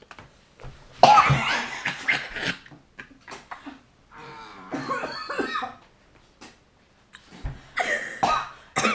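A teenage boy coughing on a foul skunk-flavoured Bean Boozled jelly bean, mixed with laughter. The loudest coughing comes about a second in, laughter follows in the middle, and more coughing and laughing comes near the end.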